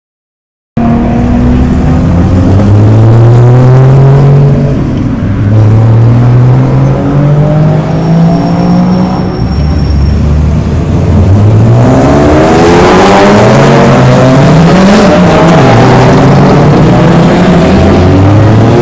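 Endurance race cars accelerating hard out of the pit lane, engines revving up through the gears, with the pitch climbing and dropping back at each upshift. The sound cuts in abruptly under a second in, and from about twelve seconds in several cars overlap.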